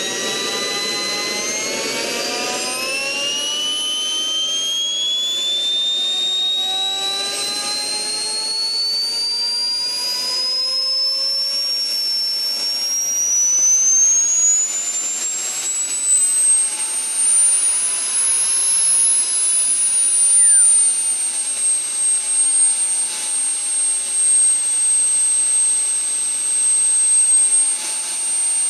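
JetCat model jet turbine starting up: a rushing noise at first fades within a few seconds, and the turbine whine rises smoothly in pitch as it accelerates. Past the middle the whine peaks, eases down a little and holds steady as the engine settles into regulated running at idle.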